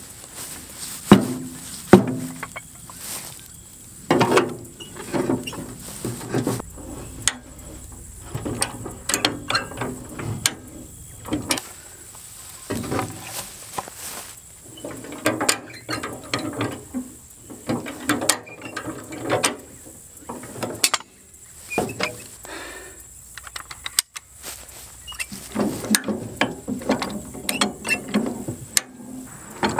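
Steel high-lift jack being worked to raise a heavy rotary mower deck: a few loud metal clanks near the start, then the handle pumped in strokes, each with ratcheting clacks as the climbing pins catch on the perforated steel bar, in bursts every second or two.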